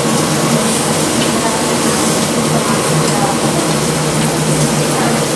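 Food sizzling steadily on a Stone-Ware electric grill plate, over the constant hum of a fan.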